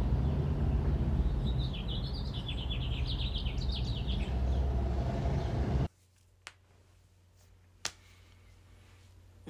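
Outdoor ambience of a steady low rumble with a bird chirping in a quick run of short notes for a few seconds. About six seconds in it cuts off abruptly to quiet room tone, with two sharp clicks.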